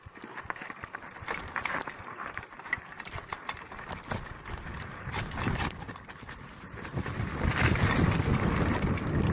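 Mountain bike rattling and knocking as it rolls over a rough dirt trail, with tyre noise on the dirt. A low rumble swells in the last couple of seconds.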